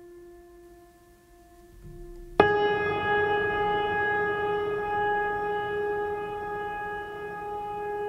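Background music: a soft held note, then about two and a half seconds in a much louder sustained, horn-like tone with many overtones cuts in suddenly and holds.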